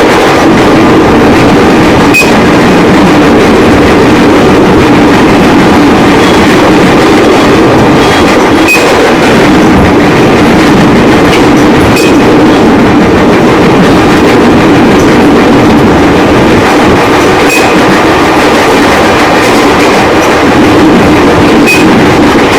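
JR 205 series electric commuter train running, heard from inside the car: a loud, steady drone from the running gear, with a sharp click every few seconds. The uploader cannot explain this unusual noise and asks what is wrong with the train.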